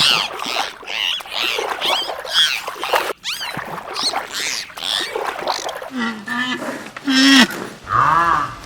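Animal calls, many short rising-and-falling cries in quick succession, broken by a sudden cut about three seconds in; lower, deeper calls follow near the end.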